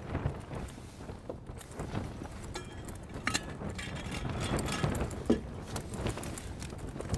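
Rustling and small clicks and knocks of a person shifting about and handling things inside a tent, over a steady low rumble.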